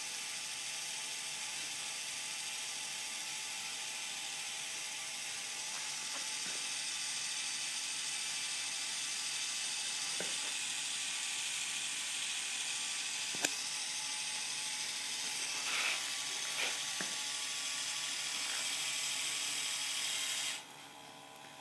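Small electric motor running steadily as it reels in string through a pulley system to hoist a 9-volt battery, with a few sharp clicks and knocks from the wooden mechanism. It stops suddenly near the end.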